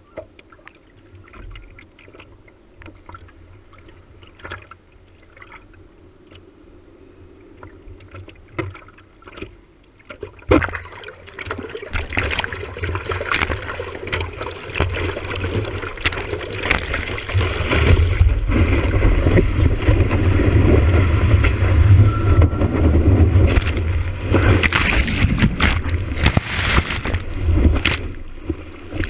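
Sea water against a surfboard, heard at a camera on the board's nose: gentle lapping and small splashes at first, then from about ten seconds in paddling splashes and rushing water that grow much louder as the board catches a wave, with loud churning whitewater over the camera through the last third.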